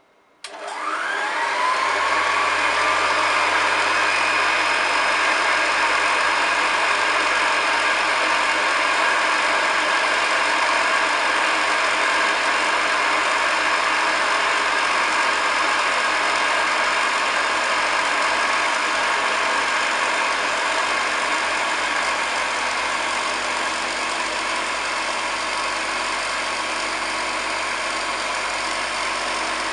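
Restored Hoover Model 725 upright vacuum cleaner switched on with a click about half a second in, its motor whining up to speed over a second or two, then running steadily.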